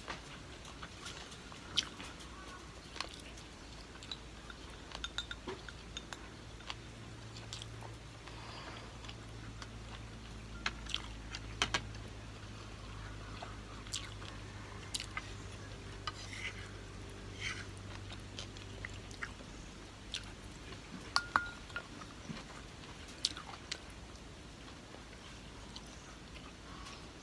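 Close-up eating sounds: chewing and wet mouth noises with scattered short, sharp clicks, over a faint low hum for a stretch in the middle.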